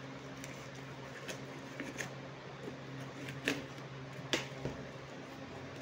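Clear plastic stretch wrap on a cardboard box crinkling and crackling as it is handled and pulled away, with a few sharp snaps, the loudest about three and a half and four and a half seconds in. A steady low hum lies underneath.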